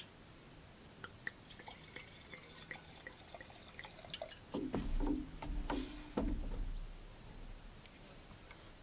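Wine poured from a glass bottle into a stemmed wine glass: a faint trickle and splash that is loudest about halfway through, after a few light clinks.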